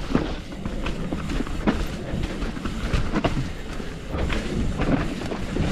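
Hardtail mountain bike riding down a rough trail: tyres on dirt, with frequent irregular knocks and clatter from the bike over the bumps.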